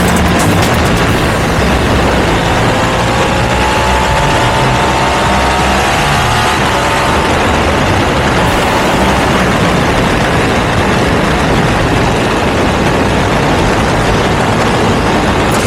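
Ducati V2's L-twin engine through a Termignoni exhaust, running under way beneath a dense rushing noise; a few seconds in its pitch rises for a while, as it does when accelerating.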